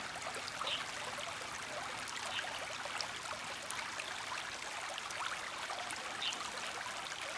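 Shallow stream running over stones: a steady, even rush of water, with a few faint high ticks now and then.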